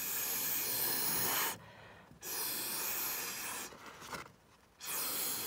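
Breath blown hard through a drinking straw onto wet watercolour droplets, pushing the paint across the paper: three long puffs of about a second and a half each, the third starting near the end.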